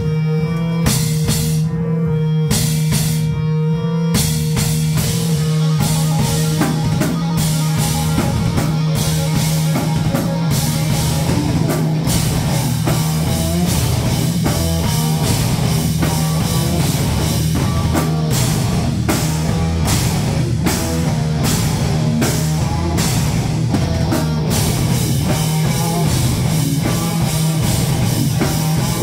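Live rock band playing loud, amplified: electric guitars and a drum kit. A held low note with sparse drum hits opens, then the full band comes in with a steady driving beat about six seconds in.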